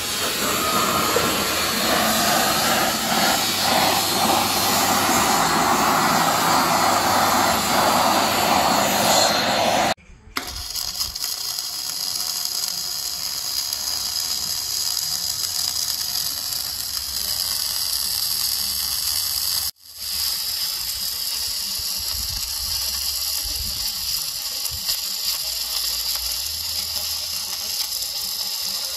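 Oxy-fuel torch burning steadily, preheating the steel truck frame before welding to limit shrinkage and distortion. About a third of the way in it cuts off abruptly, and the steady crackle and hiss of dual-shield flux-cored arc welding follows, broken by another brief drop-out about two thirds in.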